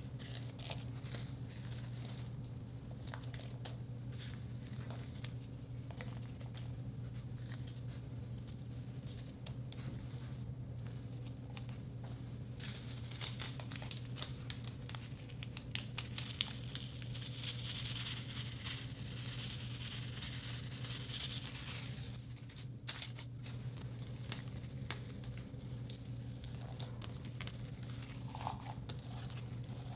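Hands working a glossy slime with chunky chocolate-chip pieces pressed into and folded through it: many small sticky clicks, crackles and crinkling, over a steady low hum.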